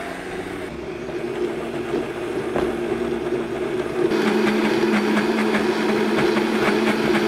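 Vitamix blender motor running steadily, grinding roasted hazelnuts as they begin to loosen from a coarse meal into a smooth nut butter. It grows louder about four seconds in.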